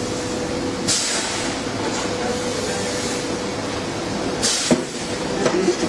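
Steady mechanical background noise with a constant hum, broken twice by short hissing rustles and once by a light click near the end.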